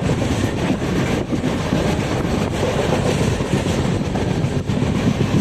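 Express passenger train running at speed, heard from the coach's open doorway: a loud, steady rumble and rattle of wheels on the rails, with a few faint knocks.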